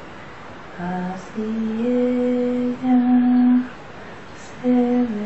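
A woman softly singing a lullaby in slow, long held notes with short breaks between phrases.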